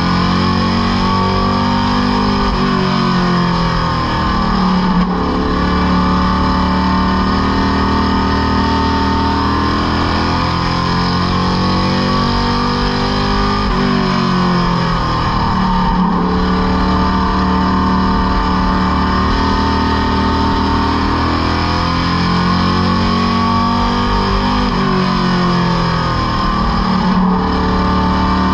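Stock car racing engine heard from inside the cockpit, its revs falling as the car lifts for each turn and climbing again down the straights, about every eleven seconds.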